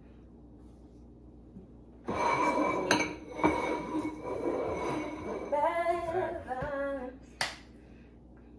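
Rustling with a few sharp clicks, then a woman's voice briefly singing a few notes.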